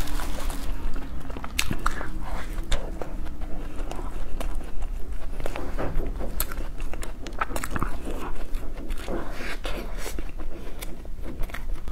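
Close-miked mouth sounds of a person biting and chewing soft ice cream: irregular sharp clicks and short smacks, with no speech.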